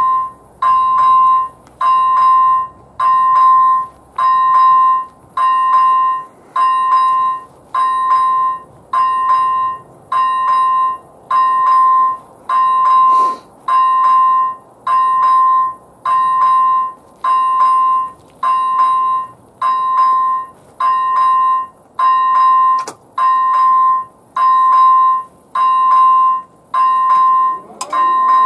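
Level crossing's first-generation electronic warning bell on AŽD 97 signals, ringing a steady ding a little faster than once a second, each a clear high tone. Right at the end the barrier drive starts up with a hum as the booms begin to lower.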